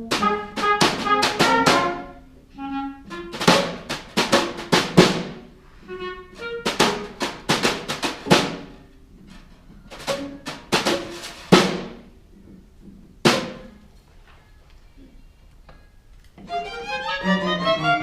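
Pit orchestra playing an instrumental passage with sharp drum-kit hits and accented band stabs. A quieter, sparser stretch comes about three quarters of the way in, and then the band comes back in fuller near the end.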